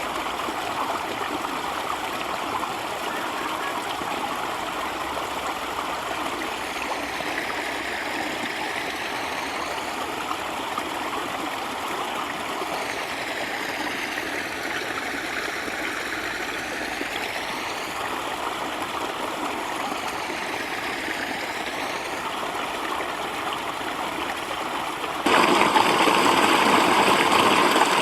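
Mountain stream flowing over rocks, a steady rushing and burbling of water. About 25 seconds in it suddenly becomes much louder.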